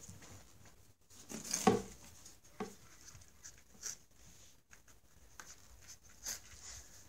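A cat scuffling inside a cardboard box: scattered scrapes and taps of claws and body against the cardboard, the loudest a bit over a second in.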